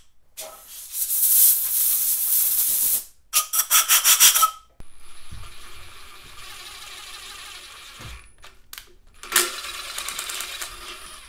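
Compressed-air blow gun blasting into a freshly chased bolt hole of an LS engine block to clear out rust and debris. It gives a long hiss of about two and a half seconds, then a rapid string of short puffs and a fainter steady hiss, then another loud blast near the end.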